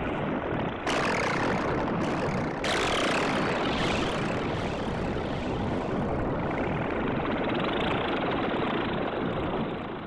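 PPG Infinite software synthesizer playing its 'Freeze 66 + FX 8' patch: a dense, noisy drone held on sustained notes. It turns suddenly brighter about a second in and again near three seconds in, then holds steady.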